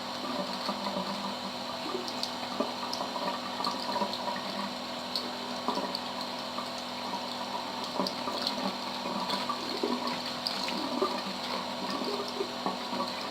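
Bathroom tap running steadily, the water splashing onto a taped sheet of paper held under the stream to soak the paper off.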